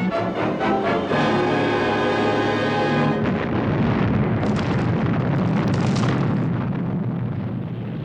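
Dramatic music for about three seconds, then a long, rumbling explosion that takes over and slowly dies down.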